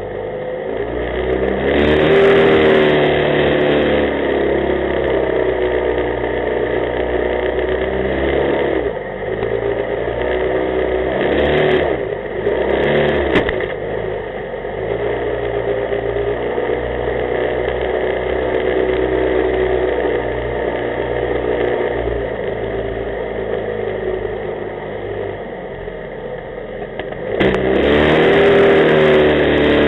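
Small jet boat's engine running under way, its pitch rising and falling as the throttle is opened and eased, with louder surges about two seconds in and near the end.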